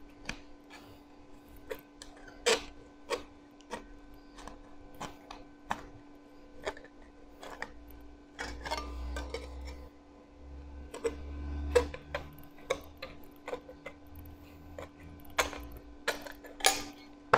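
Hand tin snips cutting thin 0.8 mm mild steel sheet: a series of irregular sharp clicks as the blades bite and close, over a faint steady hum.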